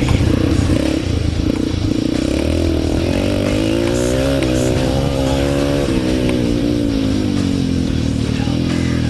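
Yamaha TTR 230's air-cooled single-cylinder four-stroke engine revving up and down as the bike is ridden on a motocross track, its pitch rising and falling repeatedly as the throttle opens and closes.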